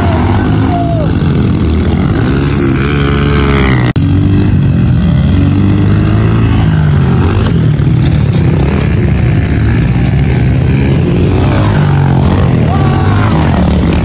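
Pit bike engines running and revving during a race, the pitch rising and falling with the throttle. The sound drops out for an instant about four seconds in.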